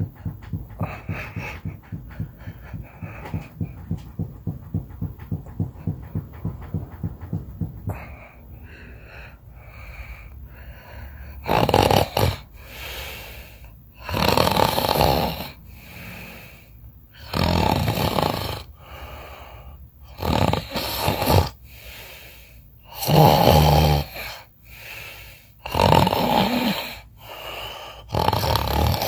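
A person snoring in sleep: loud snores about every two and a half to three seconds, starting about twelve seconds in. Before that, a fast, even run of soft pulses, two or three a second.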